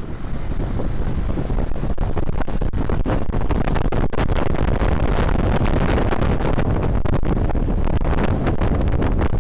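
Wind buffeting the microphone of a camera on a moving Honda Vario 125 scooter, with the scooter and road traffic underneath. It swells about half a second in and then stays loud and steady.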